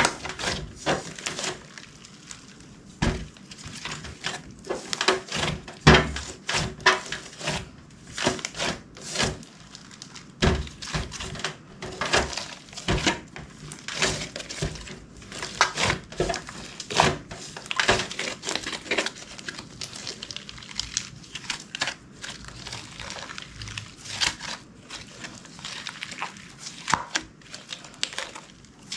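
Clear slime being kneaded and squished by hand, giving irregular clicks and pops, several a second.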